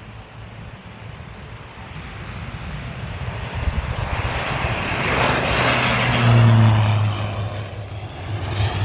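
Small airplane's engines growing steadily louder as it passes low along the runway, loudest about six seconds in with a low drone and a high whine, then easing off.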